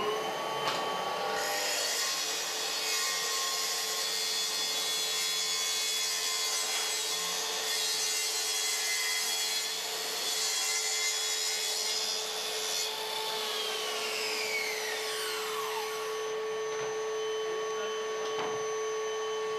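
Makita plunge saw on a guide rail ripping a wooden parquet plank lengthwise: the motor spins up, cuts steadily for about eleven seconds, then winds down with a falling whine. The connected dust extractor keeps running with a steady hum after the saw stops.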